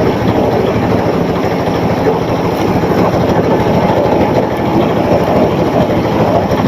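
Engine of a small river trawler boat running steadily under way, with a fast, even chug.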